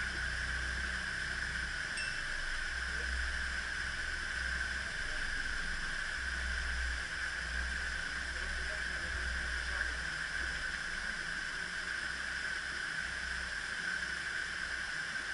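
Water gushing through the open paddles of a canal lock's upper gates as the chamber fills: a steady rushing hiss with an uneven low rumble underneath.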